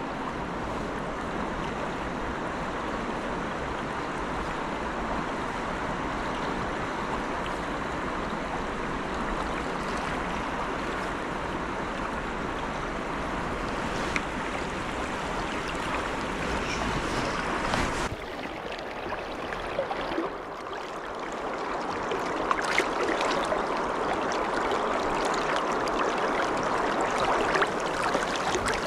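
Fast-flowing river water rushing steadily, the river running high after rain. A low rumble underneath drops out abruptly about two-thirds of the way through, after which the rush sounds brighter, with a few sharp clicks.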